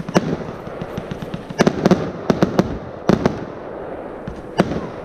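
Engelsrud 'Yess' 100-shot, 25 mm consumer fireworks cake firing: shots thump out of the tubes and stars burst overhead, about eight sharp bangs at irregular intervals, several close together in the middle.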